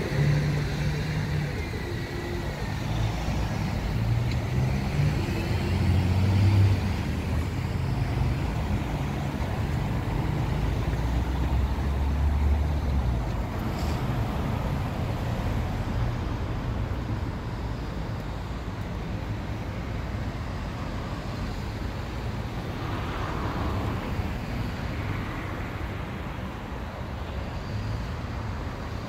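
Town road traffic: a vehicle engine hums deeply close by for roughly the first half, loudest a little after five seconds in, then settles into a steady wash of passing cars.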